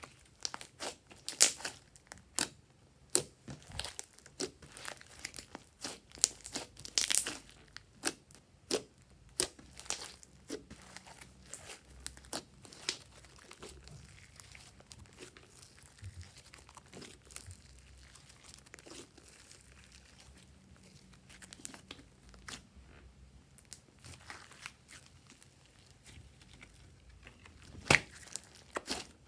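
Pink glitter slime squished, stretched and folded by hand: sticky crackling clicks and pops as it is pressed and pulled apart. The pops come thick and fast at first, grow sparse and quieter through the second half, and one louder pop comes near the end.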